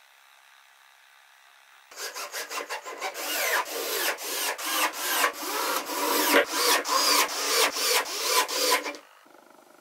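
Rhythmic rubbing strokes on wood, like sawing or rasping, about three to four a second. They start about two seconds in, grow louder, and stop sharply near the end.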